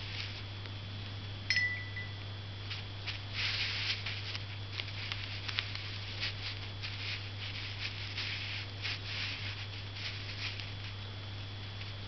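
Chinese ink brush stroking and dabbing on paper: short dry rustles and scrapes, a few longer sweeps, over a steady low electrical hum. About a second and a half in, a sharp click with a brief high ring.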